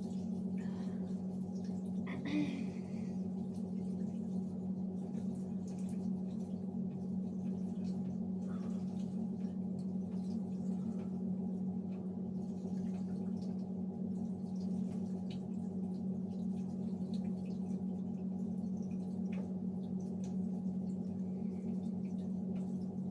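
Water splashing and dripping in a sink as a clay face mask is rinsed off the face, faint scattered splashes over a steady low hum.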